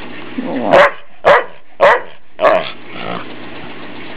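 Australian shepherd barking four times in quick succession, a little under two barks a second, as a hand teases it in play.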